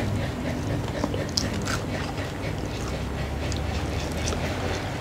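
Biting and chewing crispy fried chicken up close, with scattered small crunches and clicks.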